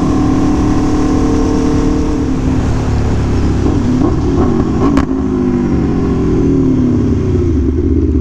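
2017 Aprilia Tuono V4 1100 Factory's V4 engine running under way, with wind noise over it. About five seconds in there is a sharp click, and the engine note then falls steadily as the bike slows.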